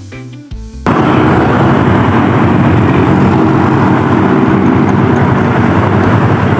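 Guitar background music cuts off abruptly about a second in. It gives way to loud, steady wind and road noise with a motorcycle engine running beneath it, as heard while riding.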